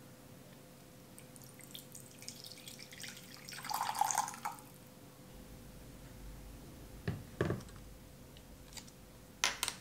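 Water poured in a thin stream into a glass measuring cup, splashing for about three seconds. Two soft knocks follow, then two sharp clicks near the end.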